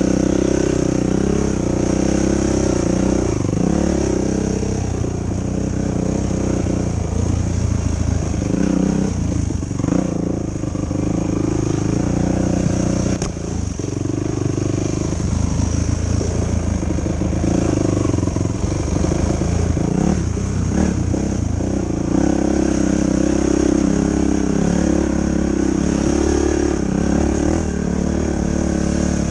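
Yamaha YFZ450 ATV's single-cylinder four-stroke engine running while being ridden, its revs rising and falling with the throttle.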